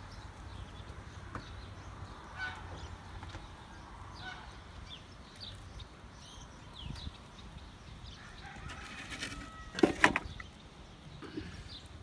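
Chickens calling, with one loud, sharp chicken call about ten seconds in. Short high chirps from small birds sound throughout.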